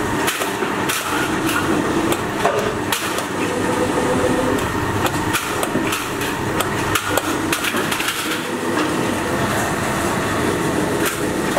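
Large metal shears, one handle clamped in a bench vise, cutting thin sheet metal: irregular sharp metallic clicks and crunches of the blades and the rattling sheet, over a steady clattering background.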